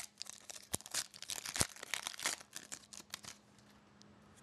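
Hockey trading cards being handled and flipped through: a quick run of short clicks and rustles for about three and a half seconds, then it goes quiet.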